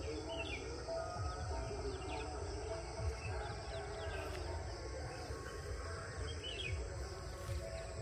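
Outdoor rural ambience: small birds chirping briefly now and then over a steady high insect hiss, with a low rumble underneath.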